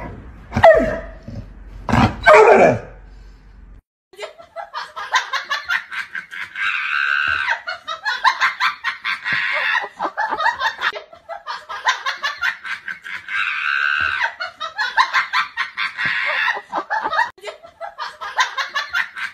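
A yellow Labrador retriever gives two loud barks. Then recorded laughter takes over, coming in waves every couple of seconds and repeating over and over.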